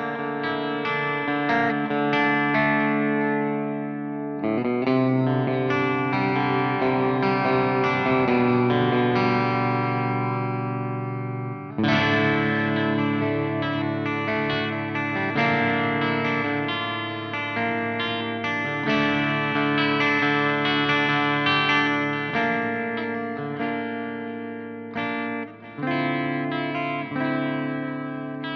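Electric guitar played through a Soldano SLO100 clone tube amplifier, with chords struck and left to ring with some distortion. Fresh chords come in about four seconds in and again around twelve seconds.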